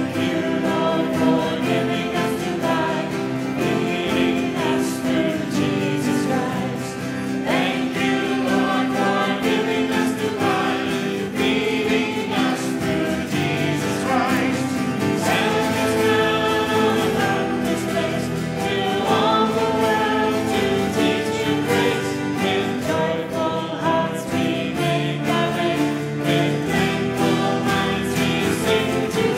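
Worship music: a group of voices singing a hymn with guitar accompaniment.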